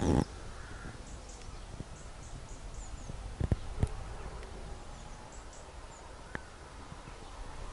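A rubber-band-powered pistol crossbow firing with a short, loud snap, then two sharp clicks about three and a half seconds later as it is handled for the next shot. Birds chirp faintly in the background.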